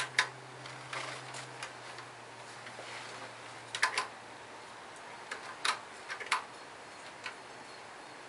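Sharp clicks and light knocks in small clusters a second or two apart, from hands working the controls of a Craftsman snowblower before starting it; the engine is not running.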